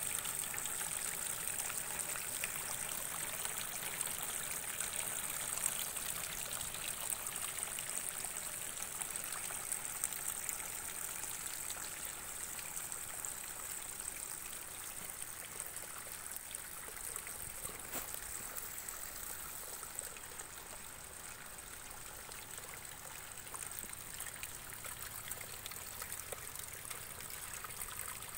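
Water trickling and splashing steadily as it runs out of the ends of hydroponic lettuce channels into a collecting gutter.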